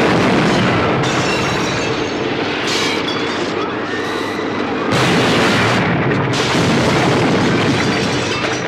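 Tornado sound effect: a loud, continuous noise of storm wind that swells and eases slightly without a break.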